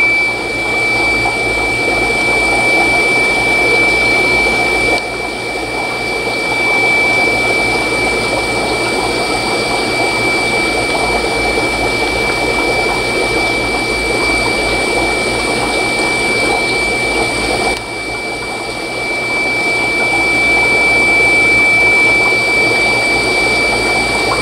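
Aquarium pump running steadily with a rush of moving water, over a low hum and a constant high-pitched whine.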